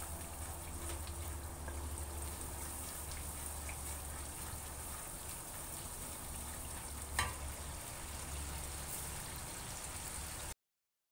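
Onion-tomato spice masala sizzling gently in a wok as it is fried down (bhuna) and stirred with a wooden spatula, over a steady low hum. A single sharp knock comes about seven seconds in, and the sound cuts out near the end.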